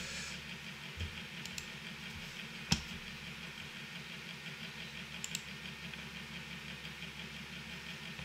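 A steady low mechanical hum with one sharp computer-mouse click a little under three seconds in and a few fainter clicks later.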